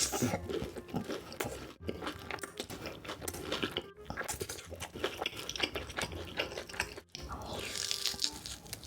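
Close-miked eating: crunchy bites and chewing of food, with abrupt cuts about two, four and seven seconds in as one clip gives way to the next.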